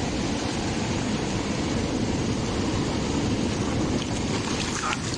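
Steady rush of wind buffeting the microphone over breaking surf. Near the end comes the splashing of feet wading quickly through shallow water.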